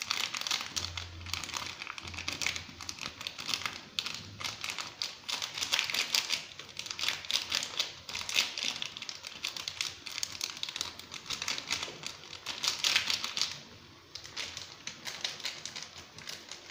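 Noodle water at a rolling boil in an aluminium saucepan, a dense, irregular crackle of bubbles popping and spitting. It eases off briefly about fourteen seconds in.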